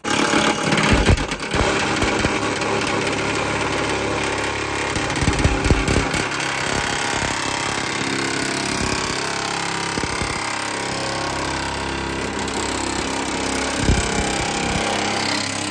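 Handheld grinder with a cut-off wheel running at speed and cutting through the sheet-metal fender lip, a steady loud grinding with a few brief knocks as the wheel bites.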